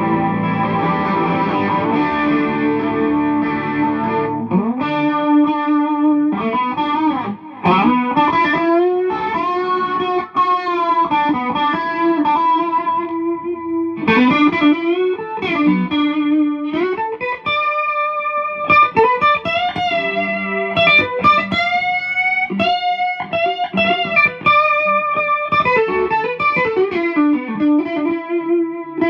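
Vintage 1980s Vester super strat electric guitar played through a Peavey VIP-3 amp on its clean channel. It starts with a ringing chord held for about four seconds, then moves to single-note lead lines with pitch bends and vibrato.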